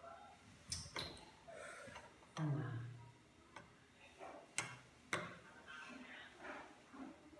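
Metal spoons clinking against a ceramic soup bowl: several sharp, separate clinks as broth is scooped, with faint voice sounds in between.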